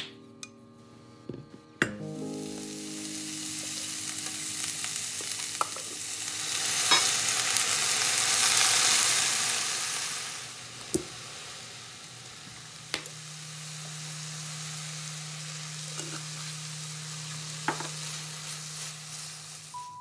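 Julienned burdock root sizzling as it stir-fries in oil in a stainless steel pan, turned with wooden chopsticks that click against the pan now and then. The sizzle swells toward the middle and settles lower after about ten seconds.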